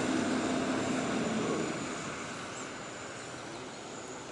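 Steady low mechanical drone with a hum of several pitches, fading away about halfway through.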